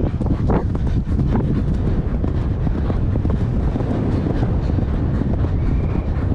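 Heavy wind buffeting the microphone of a camera worn by a rider on a galloping horse, a steady low rumble driven by the horse's speed.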